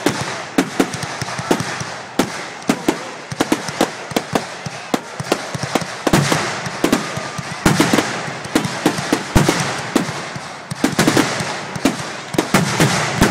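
Aerial fireworks shells bursting in quick, irregular succession: many sharp bangs, at times several a second, over a steady rushing noise that grows louder and busier about halfway through.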